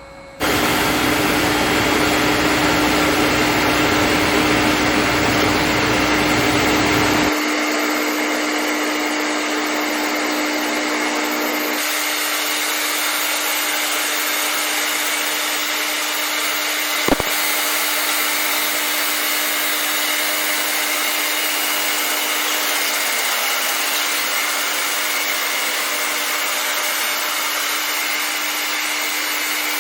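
Tank 2500 floor grinder running: a loud, steady machine noise with a constant hum, starting abruptly right at the start and easing slightly in its deep low end about seven seconds in. A single sharp click about 17 seconds in.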